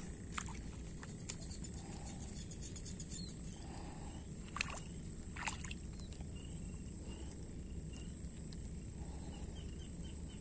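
Riverside outdoor ambience: a steady low rumble under a constant high-pitched whine. There are a few sharp clicks from handling a spinning rod and reel, and a run of short high chirps about two-thirds of the way through.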